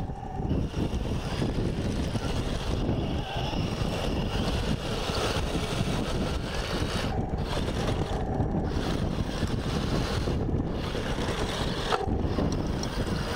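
Wind buffeting the microphone, over the whine of a 1:16 scale Taigen RC tank's electric drive motors and gearboxes as it crawls through mud.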